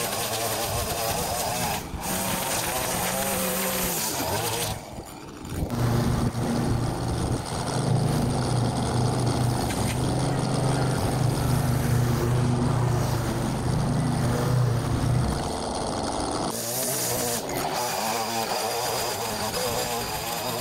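Stihl petrol line trimmer running at high revs and cutting grass, its engine note wavering as the head swings through the growth. After a short dip about five seconds in, a steadier, deeper engine sound takes over for about ten seconds, then the wavering trimmer sound returns.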